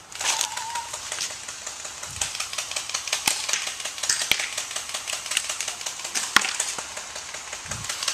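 Rustling handling noise with many scattered sharp clicks, a few louder than the rest, as the camera is carried on the move.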